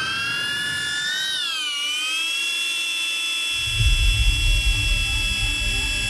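Small quadcopter drone's propellers whining at a steady high pitch just after spinning up, the pitch rising and dipping briefly about a second in. A low rumbling joins about four seconds in.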